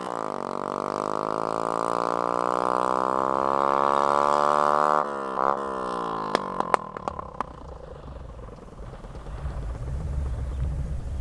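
Small motorcycle with a homemade bamboo exhaust accelerating away, its engine pitch climbing steadily through a gear. About five seconds in the pitch drops at a gear change, then a few sharp pops come from the exhaust as the engine note fades into the distance.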